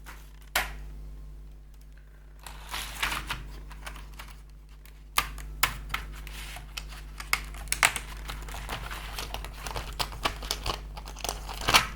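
Plastic keycaps and their packaging being handled: rustling and crinkling with scattered sharp plastic clicks, the loudest click just before the end.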